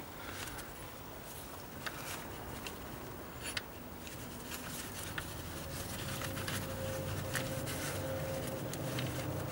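A rubber multi-rib auxiliary drive belt being fed by gloved hands around the engine pulleys: scattered light clicks and rubbing as the belt and gloves brush against the pulleys and metal. A faint low hum comes in underneath about halfway through.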